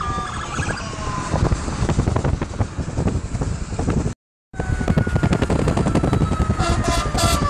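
Fire engine sirens passing, heard from inside a moving car over steady road and tyre noise. A slowly falling siren tone follows a brief dropout a little past four seconds, and short horn blasts sound near the end.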